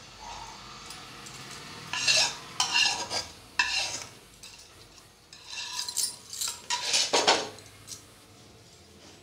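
A metal spoon scraping and clinking against a plate as a tempering of mustard seeds and dried red chillies is spooned onto the slices. The sound comes in two short spells, about two seconds in and again about six seconds in.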